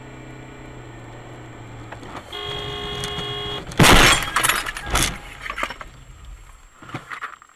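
Car crash: a vehicle horn sounds for about a second, then a loud collision with breaking glass about four seconds in, a second hard impact a second later, and smaller clattering hits as it dies away.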